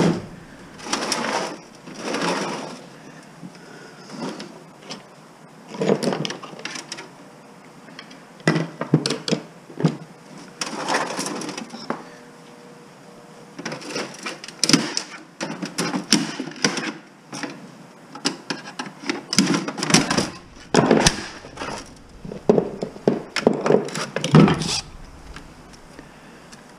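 Irregular bouts of clattering and knocking from a steel computer case as it is handled and taken apart, its sheet-metal panels and drive cage rattling, with quiet gaps between; the clatter is busiest over the last ten seconds or so.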